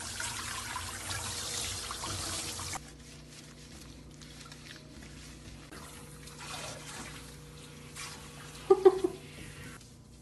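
Water spraying from a kitchen-sink pull-out sprayer onto a puppy in the sink, cutting off about three seconds in. Quieter splashing and handling follow, with a brief pitched cry near the end.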